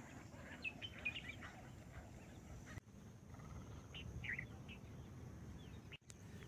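Faint bird chirps: a cluster of short, high calls about a second in and a few more around four seconds in, over a low outdoor background rumble.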